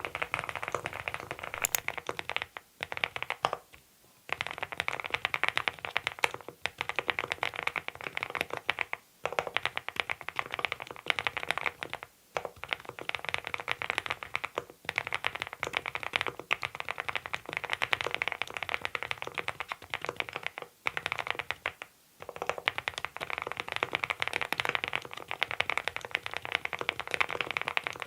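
Continuous fast typing on a Monstargear Ninja87 Pro ALU aluminium-case mechanical keyboard fitted with Adelie switches: dense runs of key clacks broken by a few short pauses.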